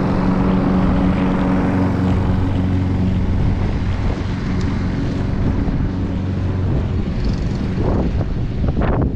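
Hayter Pro 41 petrol rotary lawnmower running steadily while it is pushed across grass, mowing.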